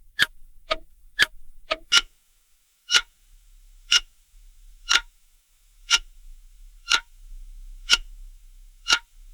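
Clock ticking. For the first two seconds it is a quick tick-tock, about two ticks a second with alternate ticks sounding different; then it changes to a single tick once a second.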